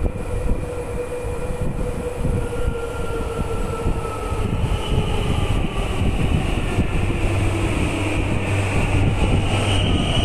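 Subway train approaching through the tunnel into the station: a rumble that grows steadily louder, with a high tone that rises in pitch from about halfway through.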